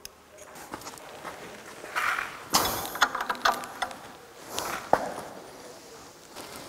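Scattered metallic clicks, clinks and scuffs of a wrench on the crankshaft pulley bolt as a four-cylinder engine on a stand is turned over by hand to check the engine timing after fitting the timing belt.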